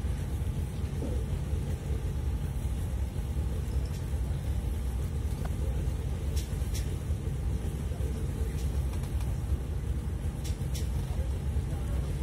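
Steady low rumble of a motor yacht's diesel engines idling while it lies stern-to at the quay during mooring, with a couple of faint ticks.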